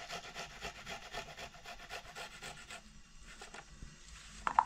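Quick rasping strokes, about five a second, like something being rubbed or grated by hand; they thin out and stop about three seconds in. A short sharp sound follows near the end.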